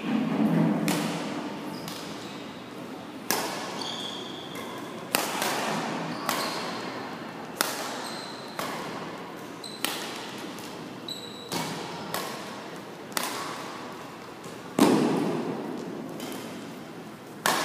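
Badminton rackets striking a shuttlecock during a rally: sharp smacks every one to two seconds, each echoing through a large gym hall. The loudest hit comes near the end.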